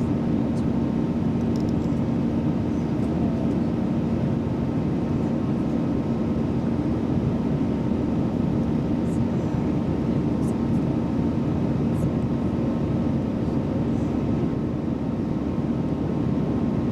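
Steady drone of an airliner in flight heard inside the passenger cabin: engine and airflow noise with a constant low hum running through it.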